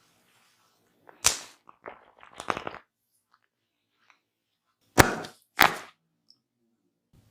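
Sharp percussive strikes from a head massage: a single one about a second in, a quick cluster of lighter ones around two seconds, then two loud ones about half a second apart about five seconds in.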